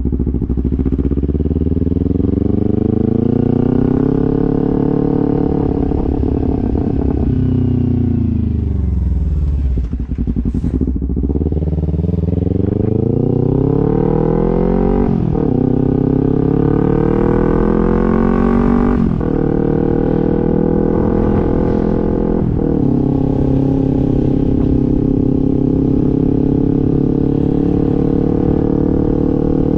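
2014 Kawasaki Ninja 300's parallel-twin engine under way. The revs climb, hold, then fall away as the bike slows about a third of the way in. It then pulls up through three quick upshifts, each a sudden drop in pitch, and settles to a steady cruise near the end.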